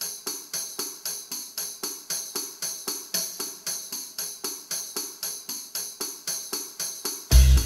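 Background music: jingling percussion on a steady beat, about four strikes a second, over light tones. Near the end a loud bass and full band come in.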